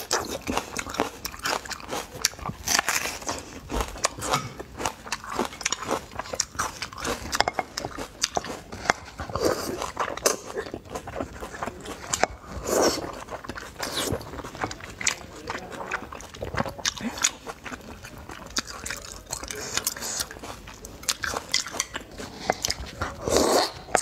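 Close-miked eating: crunchy bites and chewing of a whole raw red onion, with a few loud slurps of wide noodles in spicy broth.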